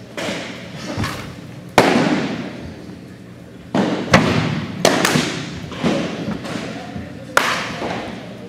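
Baseballs smacking into catchers' mitts: a string of sharp pops, irregularly spaced about every second or so, the loudest about two seconds in, each ringing out in the gymnasium's echo.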